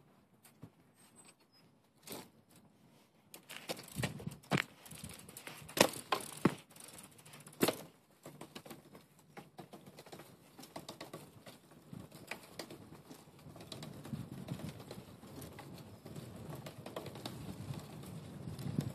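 A few sharp knocks and clicks as the bike is handled and mounted, then a 1991 Cresta road bike being ridden on asphalt: a steady rattling road noise from the tyres and frame that slowly grows louder toward the end.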